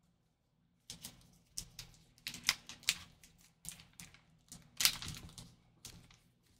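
Crinkling and crackling of a stiff black pouch being handled and worked open by nitrile-gloved hands: an irregular run of sharp crackles starting about a second in.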